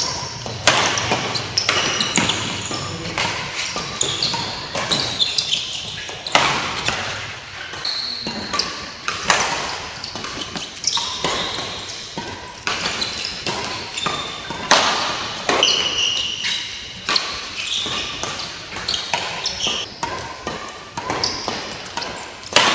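Badminton rally: rackets striking the shuttlecock with sharp smacks every second or two, mixed with shoes squeaking and feet thudding on the court floor.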